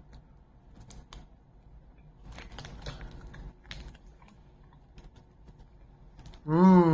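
Scattered light clicks and crinkles as a chocolate bar and its wrapper are handled and a piece is broken off and eaten. Near the end a person gives a loud hum that falls in pitch.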